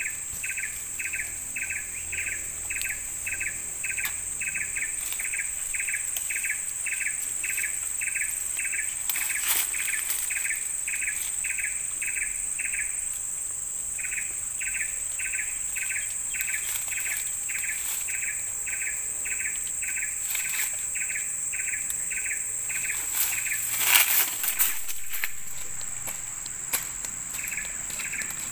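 Tropical rainforest ambience: a steady, high-pitched insect drone under a rapid repeated call of short pulses, about four a second, which breaks off for about a second midway and stops a few seconds before the end. A few sharp cracks come near the end.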